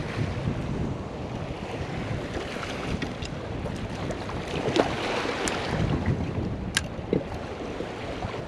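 Wind buffeting the microphone and choppy waves slapping against a kayak's hull, a steady rumbling wash, with a few light clicks in the second half.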